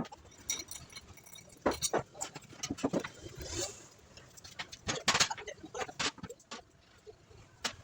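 Irregular clicks and knocks, several a second at times, with louder knocks about two, three and five seconds in.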